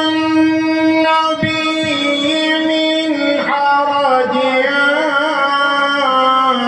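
A male qari reciting the Quran in the melodic tajweed style. He holds one long steady note for about three seconds, then drops slightly in pitch into a wavering, ornamented phrase.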